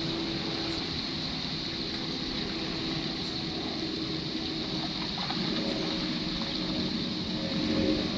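Steady outdoor background noise with a faint low droning hum and a constant high hiss.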